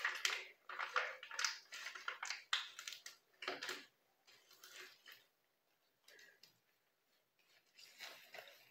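Gloved hands and a fine-tooth comb working hair-straightening cream through wet hair: quick irregular crinkling and squishing clicks over the first few seconds, then only a few scattered ones.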